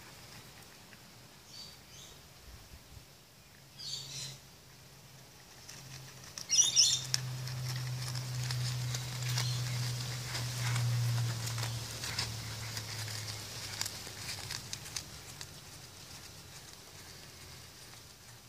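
A cat chewing and tearing a long grass-like leaf blade: crackly rustling and small crunching clicks, the loudest a sharp crackling tear about seven seconds in. A low hum swells and fades through the middle.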